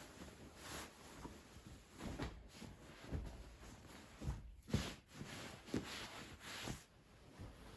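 Soft, irregular knocks and rustles of household objects being handled while tidying a bedroom, about eight short taps and brushes with the sharpest one a little before five seconds in.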